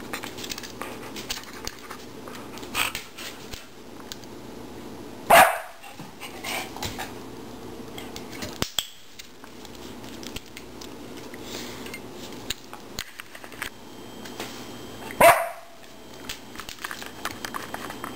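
A Border Collie barks twice, two single short barks about ten seconds apart, with light taps and clicks in between.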